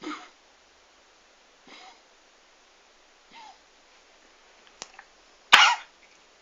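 Dog coughing in four short hacking bursts, about one every second and a half, as if choking, the last one the loudest: the constant cough of canine tracheobronchitis (kennel cough).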